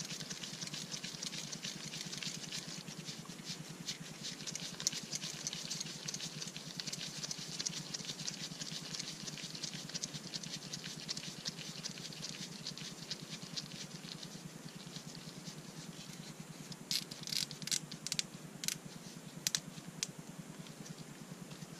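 Nitrile-gloved hands working a felt polishing disc onto a threaded steel rod: a dense, fine rustling and scraping of glove on felt and metal. Several sharp clicks come near the end.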